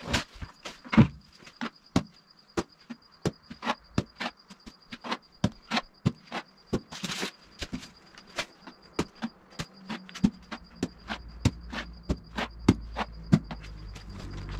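Trowel slapping dabs of tile-style adhesive onto a polystyrene insulation board and knocking against the adhesive bucket: a string of sharp, irregular knocks, a few a second. Crickets chirp steadily underneath, and a low rumble rises near the end.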